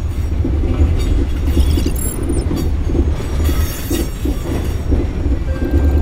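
Inside a moving train car: the running gear rumbles steadily and low, with high-pitched wheel squeals rising over it about two seconds in and again near four seconds.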